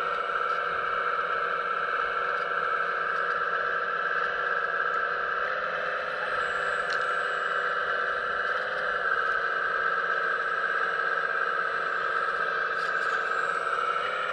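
Hydraulic pump of a 1:15 scale RC Hitachi ZX135US excavator whining steadily as the arm and bucket work, its pitch shifting slightly about five and nine seconds in.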